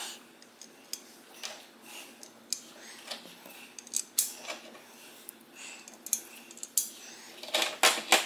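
Scattered light metallic clicks and clinks of wheel hardware being handled while the beadlock ring's bolt holes are lined up.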